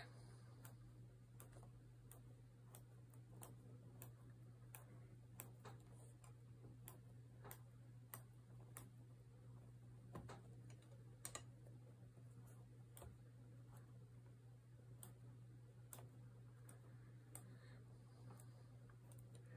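Faint, irregular light clicks of a metal weaving hook and knitting needle tapping against cotton loops and the pegs of a potholder loom, about one or two a second, over a low steady hum.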